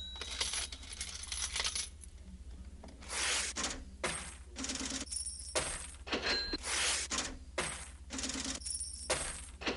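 Metallic clinking and jingling: a run of short bright strikes, irregularly spaced, some with a brief ringing tone, over a low steady hum.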